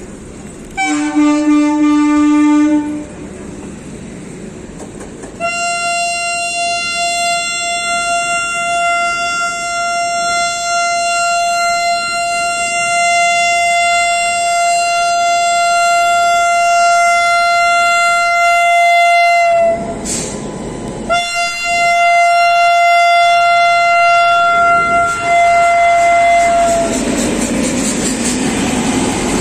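WAP-7 electric locomotive's twin-tone horn: a short, low-pitched blast about a second in, then a long high-pitched blast held for about fourteen seconds, a brief break, and another high blast of about six seconds.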